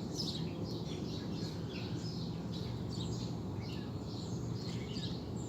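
Small birds chirping repeatedly, short high calls one after another, over a steady low background rumble.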